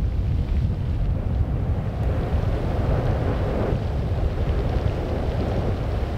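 Wind buffeting the microphone over a low, steady rumble. A rushing hiss swells briefly around the middle.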